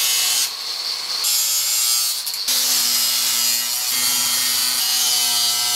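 Handheld electric power tool running steadily as it works the deck edge of a small sailboat: a continuous gritty hiss over a motor hum. The load and pitch shift a few times as the tool bites and eases off.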